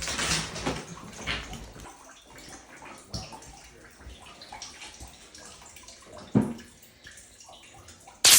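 Scattered knocks, clatter and scraping of bathroom demolition in a small tiled room, busiest in the first two seconds, with single sharp knocks about three and six and a half seconds in. A loud rush of noise starts suddenly right at the end.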